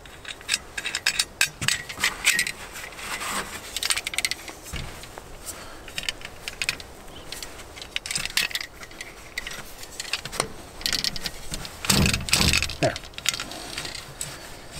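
Metal clicks, taps and scrapes from handling a Sven folding saw: the wing nut being tightened and the aluminium frame and loose steel blade rattling as the saw is swung open into its triangle, with a heavier knock near the end.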